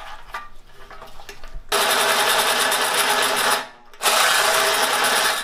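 Handheld electric drill spinning a 1¼-inch hole saw into a metal bumper support, running in two loud bursts with a short pause between them, the first starting a little under two seconds in. The drill is overloaded by the cut and smoking.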